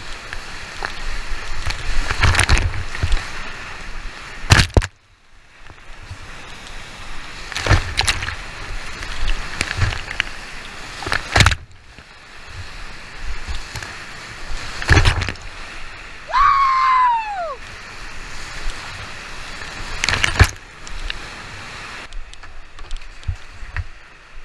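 Whitewater rapids rushing loudly around a kayak, with spray splashing over the helmet-mounted GoPro in repeated loud surges. About sixteen seconds in, a single high call glides down in pitch for about a second.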